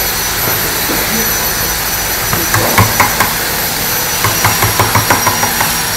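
Steady running noise of workshop machinery with a high whine over it. From about two and a half seconds in, a string of short sharp taps from a hand tool working a wooden chair part, quickening to about four or five a second in the second half.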